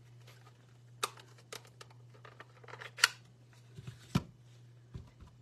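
Clear acrylic stamp block and plastic ink pad handled on a craft desk while a stamp is inked on a Real Red pad: a handful of sharp clicks and taps, the loudest about three seconds in, over a steady low hum.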